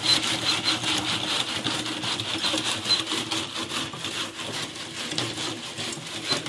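Hand-operated groundnut sheller being worked: its toothed handle drives the pods against a mesh grille, with a dense, irregular crackle and rattle of shells breaking and husks and nuts falling.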